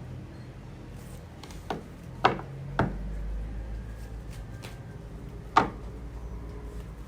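Tarot cards handled and laid on a table: four short, sharp taps, three close together and one a few seconds later, over a steady low hum.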